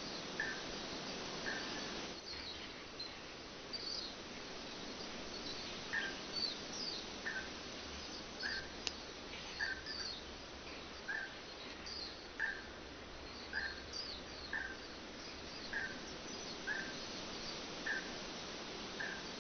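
Songbirds chirping: one bird repeats a short call every half second to a second, while others add quicker, higher chirps, over a steady background hiss.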